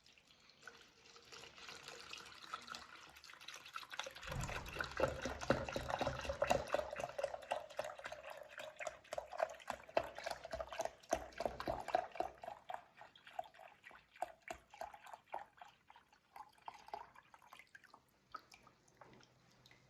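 Milk being poured into a glass: a long glugging, splashing pour with a ringing tone from the filling glass. It is loudest in the middle and tails off into a few drips near the end.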